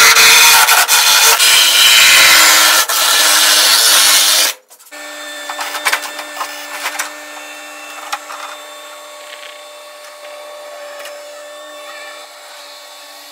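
Angle grinder cutting through the sheet-metal floor of a Jeep CJ body tub with a steady, loud whine for about four and a half seconds, then cut off suddenly. After that a compact track loader's engine runs steadily, much quieter, with a few knocks around six to seven seconds in.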